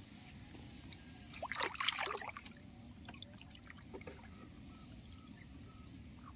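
Water trickling and splashing in shallow marsh water as a fishing net is worked by hand, in a brief cluster about two seconds in; otherwise only faint, steady background sound.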